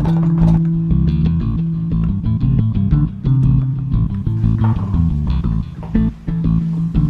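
Background music with a bass line and a steady rhythm.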